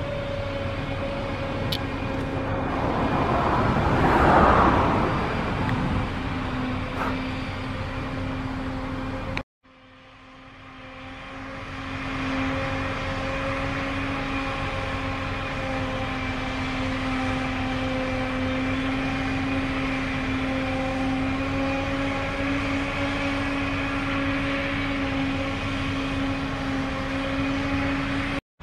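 John Deere 8600i self-propelled forage harvester chopping grass, with the tractor and silage trailer running alongside. Steady engine drone with a high hum held on one pitch. A louder rush swells about four seconds in, and the sound cuts out briefly about a third of the way through, then fades back in.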